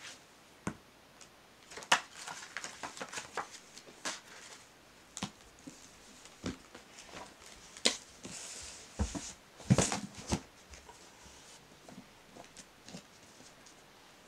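Books being handled and arranged: scattered taps and knocks as covers meet and are set against each other in a row, with a brief soft rustle of paper about eight seconds in.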